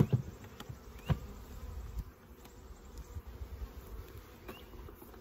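Honeybees buzzing in flight around a hive that has just been stocked with a package of bees, the colony still unsettled. A couple of short knocks sound near the start and about a second in.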